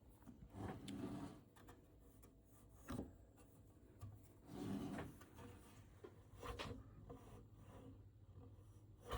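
Faint handling noises from an 8-inch floppy drive being touched and moved by hand: a few soft rubs and light knocks, spaced a second or two apart.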